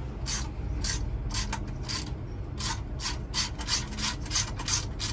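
Hand ratchet wrench clicking in repeated short strokes as a bolt on a seat rail bracket is turned, about twice a second at first and quicker in the second half.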